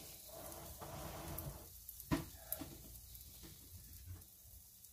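Cornbread batter faintly sizzling on a hot waffle iron while hot dogs on sticks are pressed into it, with one sharp tap about two seconds in.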